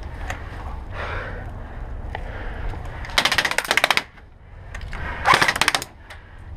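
Airsoft gun firing on full auto in two short bursts of rapid, evenly spaced shots, the second about a second after the first.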